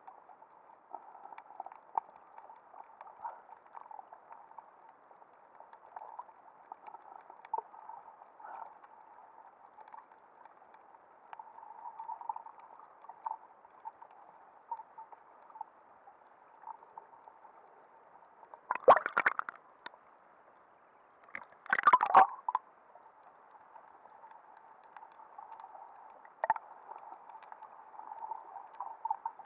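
Muffled underwater sound heard through a waterproof action-camera housing: a steady hiss with faint crackles and bubbling. About two-thirds of the way through come two louder bursts of water noise, about three seconds apart.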